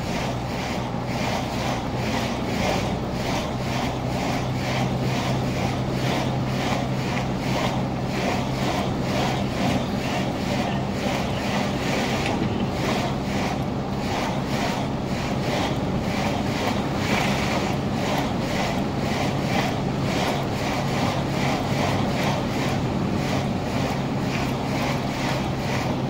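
A car driving steadily along an open road, heard from inside the cabin: a constant low engine hum under road and wind noise.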